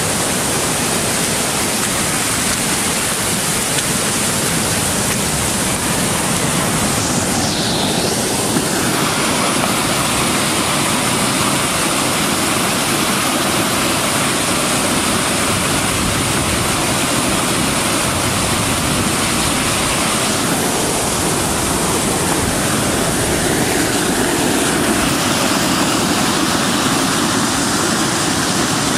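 Storm-swollen floodwater pouring over a small concrete dam spillway: a loud, steady rush of churning water.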